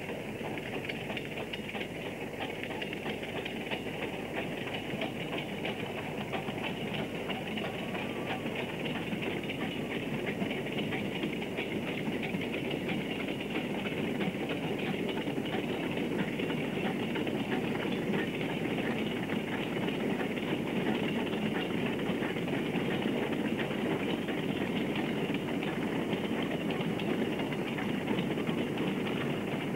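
South Maitland Railways 10 class 2-8-2 tank steam locomotive working a coal train, its steady exhaust and the rumble of the wagons growing gradually louder.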